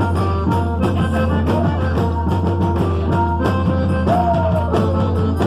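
Loud São João quadrilha dance music with a steady drum beat and heavy bass. A voice comes in about four seconds in with a sliding sung note.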